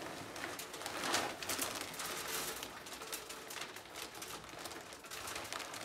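Wood pellets pouring from a plastic bag into a pellet stove's hopper: a continuous rattling hiss of many small clicks, with the plastic bag crinkling.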